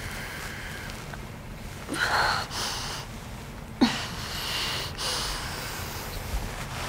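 A person breathing in sleep, a few noisy breaths a second or two apart.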